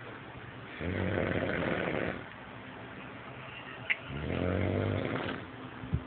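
Snoring in deep sleep: two long, buzzing snores about three seconds apart, each lasting about a second and a half. A brief faint click comes just before the second snore.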